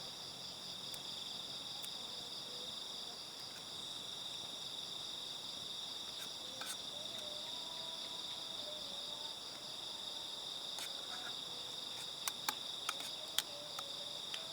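Steady chorus of crickets, a continuous high trill with no pauses. A few sharp clicks come close together near the end.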